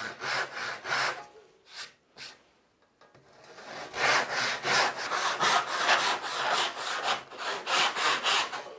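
Lie-Nielsen 8 TPI crosscut handsaw cutting through a board of myrtle, in steady back-and-forth strokes at about three a second. The strokes stop briefly about a second and a half in, then pick up again about three seconds in and run on.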